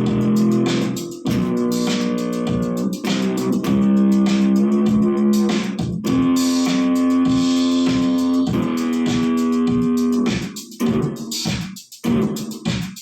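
Electric bass guitar played through a Zoom GM-200 multi-effects unit: sustained, effected notes over a regular percussive beat, breaking into shorter choppy phrases with brief gaps near the end.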